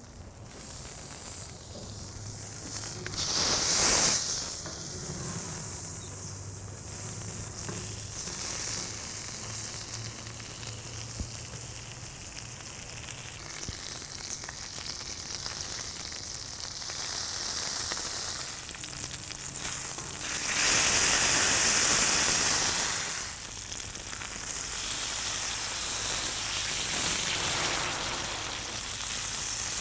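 Tomahawk ribeye steak sizzling as it sears in oil-and-vinegar basting liquid on the hot steel flat top of a charcoal grill. The sizzle surges louder twice, briefly about four seconds in and for a couple of seconds a little past the twenty-second mark.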